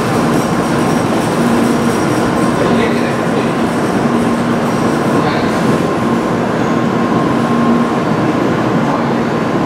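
N700A Shinkansen train standing at the platform, its onboard equipment running with a steady hum.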